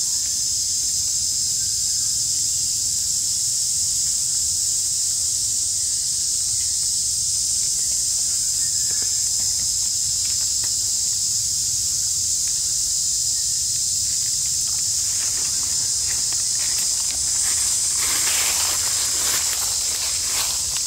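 Steady high-pitched drone of insects. Rustling and crackling in dry leaf litter sets in about three-quarters of the way through and is loudest near the end.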